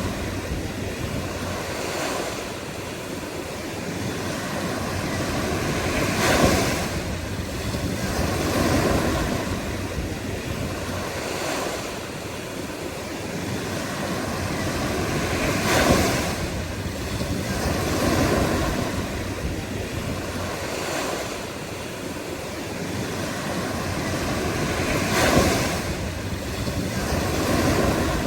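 Ocean surf: a continuous wash of waves, swelling and easing every few seconds, with a bigger wave breaking about every nine to ten seconds.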